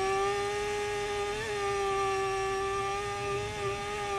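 Racing motorcycle engine running at high, steady revs, giving an even buzzing tone with only slight wavers in pitch.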